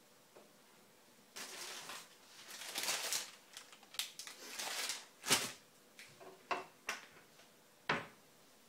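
Crinkling of a plastic cake wrapper being handled, mixed with knocks and clicks of a kitchen cupboard and the things on its shelves. A cupboard door shuts with a sharp click near the end.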